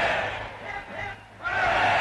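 Large crowd giving three cheers, shouting "hooray" together: one cheer fades out over the first second and the next rises sharply about a second and a half in.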